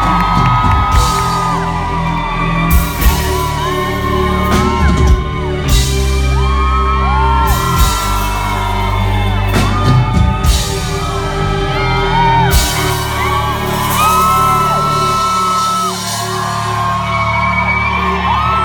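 Live indie-pop band playing through a club PA: loud drums with repeated cymbal crashes over sustained bass and guitar chords and singing, with fans whooping and yelling close by. The deepest bass drops out near the end.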